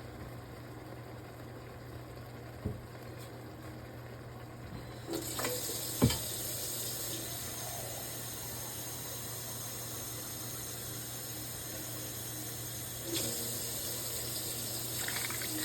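Water running steadily from a kitchen tap, starting about five seconds in, to add to the soup. A sharp knock comes just after the water starts.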